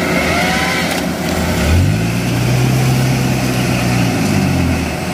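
Diesel engines of a combine harvester and a tracked tractor running while both machines are bogged down in rice-field mud. One engine revs up about two seconds in, holds there for about three seconds under load as it strains to pull free, then drops back near the end.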